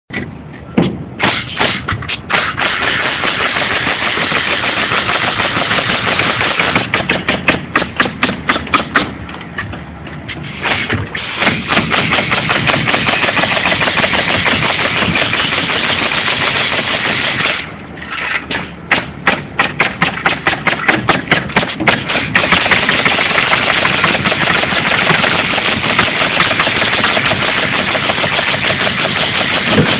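Hitachi pneumatic framing nailer firing nails into OSB roof sheathing in rapid succession, several shots a second. It breaks off briefly twice, about a third and just over halfway through, then resumes.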